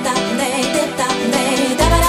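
Music: a song with a wavering melodic line, and a deep bass beat that comes in near the end.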